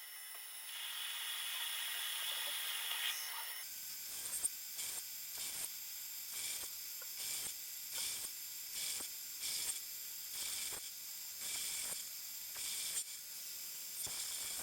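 A steady hiss for about three seconds, then regular rasping hand-tool strokes, about two a second, on a small metal workpiece being cut down.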